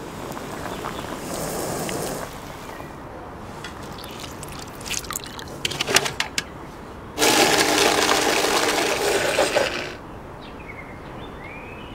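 A blender runs for about two and a half seconds, starting and stopping abruptly, as it blends soaked dried red chillies into a thick paste. Before it come quieter liquid sounds and a few clicks.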